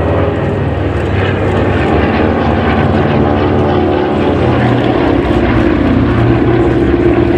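Multi-engine piston propeller aircraft (a C-47 with Beech 18s in formation, all radial-engined) droning overhead in a flypast, with the engine note shifting in pitch as they pass.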